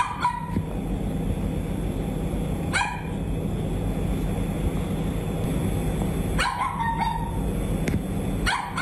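Small dog barking in short high-pitched bouts about every three seconds, over a steady low background hum. It is barking to call for its absent owner rather than aggressively, as the neighbour describes it.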